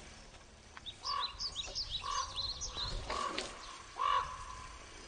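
A crow-like bird cawing four times, about once a second, with a smaller bird's quick high chirps between the first few caws.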